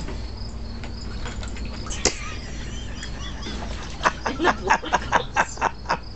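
A Bernese mountain dog splashing in the water of a plastic kiddie pool: a quick run of about ten wet splashes, four or five a second, starting about four seconds in.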